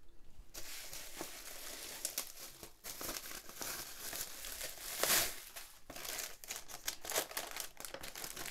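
Bubble wrap and a plastic mailer bag crinkling and rustling as the bubble wrap is pulled off the parcel by hand. It starts about half a second in, with a louder rustle about five seconds in.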